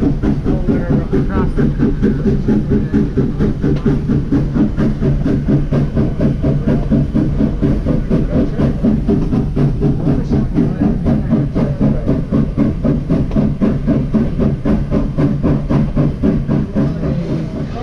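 Steam-hauled passenger train on the move, heard from an open car just behind the locomotive: a steady low rumble with an even pulse of about three beats a second.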